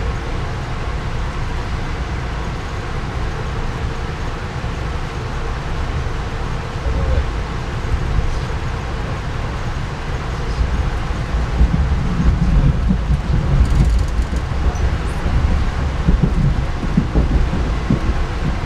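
Passenger train running along the tracks: a steady low rumble that grows louder and rougher about two-thirds of the way in.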